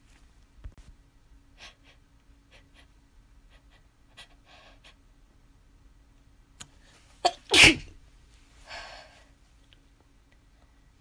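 A person sneezing once, loudly, about seven and a half seconds in, with a short sharp catch of breath just before it and a breathy exhale after. A few faint breaths come before it.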